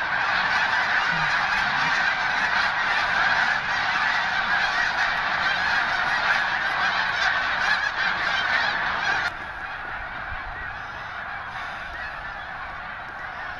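A huge flock of snow geese calling all at once, a dense continuous din of honking. About nine seconds in it suddenly drops to a quieter level and carries on.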